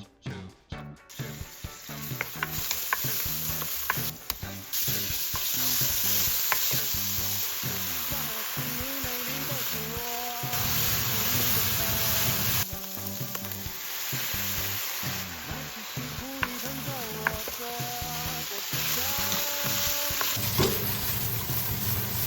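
Pork and garlic scapes sizzling in a hot pan as they are stir-fried, with occasional clicks of the spatula against the pan. The sizzle starts about a second in.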